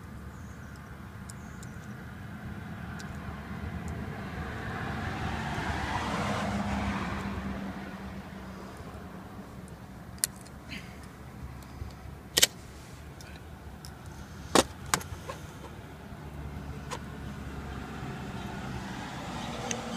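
A vehicle passes, its noise swelling and fading over a few seconds. Then come several sharp metallic clicks as circlip pliers work a retaining ring in a motor's bearing housing, two of them standing out.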